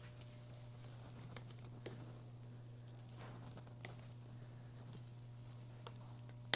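Faint handling sounds of a bicycle rear light and its plastic mounting clip: scattered small clicks and light rustling, with one sharper click near the end. A steady low hum runs underneath.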